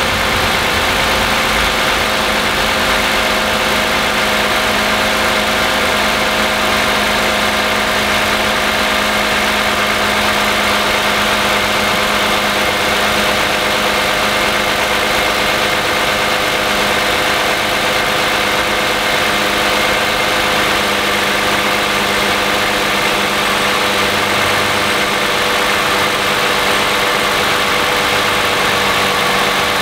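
2010 Toyota Camry's 3.5-litre V6 (2GR-FE) idling steadily, heard from above the engine under the open hood, still cold, within about a minute of a cold start.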